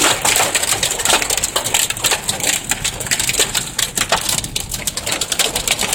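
Hailstones pelting a car's roof and windshield, heard from inside the moving car: a dense, irregular clatter of small hard impacts over a low road rumble.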